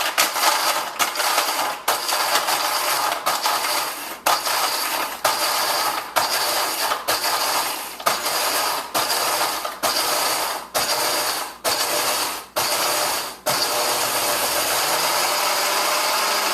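Blender crushing a large load of ice with little liquid into a thick soft-serve mix. It cuts out briefly about once a second, then runs steadily for the last few seconds.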